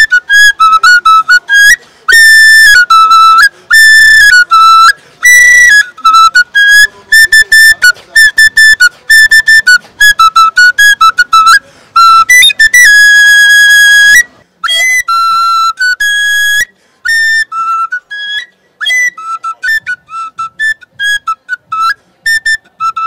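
Soundtrack music: a solo flute plays a melody of short, quick high notes, with one long held note about 13 seconds in. The notes become sparser and softer in the last third.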